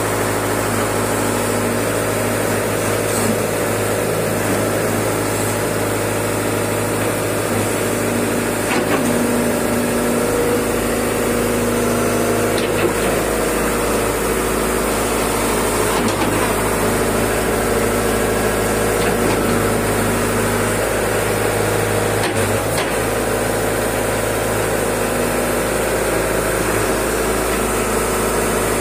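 Caterpillar E70B hydraulic excavator's diesel engine running steadily while the boom and bucket are worked, with a few faint knocks.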